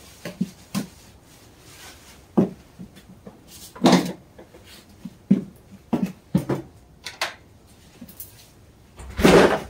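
Scattered knocks and clunks of metal feed bowls and a door being handled in a small shed, with a louder, longer noise about nine seconds in.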